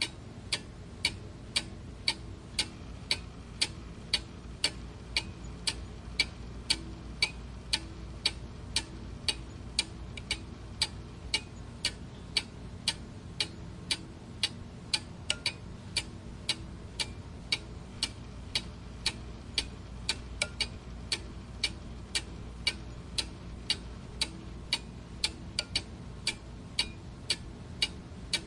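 Clock ticking steadily, about two sharp ticks a second, in an even rhythm.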